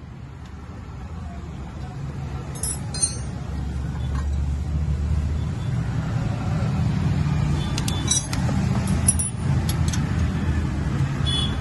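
Light metal clinks of a bolt and tools against a stainless-steel exhaust pipe and its mounting bracket as the pipe is fitted to a motorcycle, a few scattered through, over a steady low rumble.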